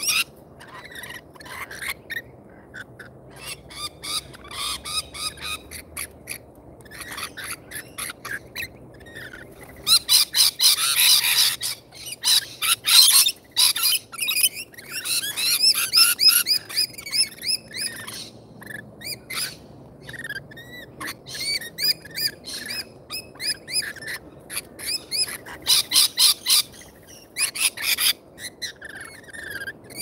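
Parrots calling: rapid, high chattering and shrill screeches, with runs of loud, harsh squawks about ten seconds in and again near the end.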